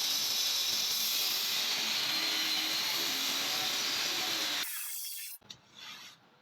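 Table saw running, a steady hissing whine as the blade cuts through wood, cutting off sharply about five seconds in, followed by a few faint ticks.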